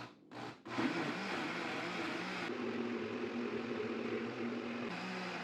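Electric blender switched on with a couple of short pulses, then running steadily as it mixes cake batter.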